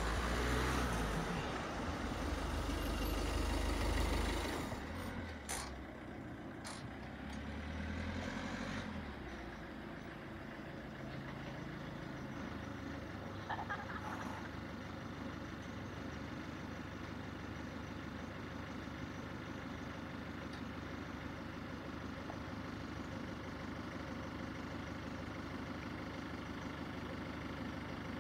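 A road vehicle passing close by, a low rumble that fades after about four seconds, followed by a steady low hum of road traffic. A couple of brief clicks come around five to seven seconds in.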